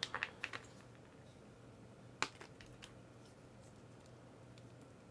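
Small plastic miniature parts clicking and tapping as they are handled: a quick run of light clicks at the start and one sharper click about two seconds in.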